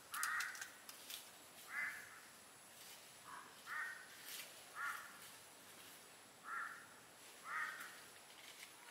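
Newborn macaque giving short, repeated high calls from its mother's arms, seven in all at irregular gaps.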